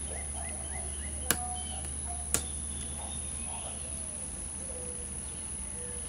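Two sharp clicks about a second apart as a Master Lock 150 padlock is worked with a lock pick, over faint bird chirping in the background.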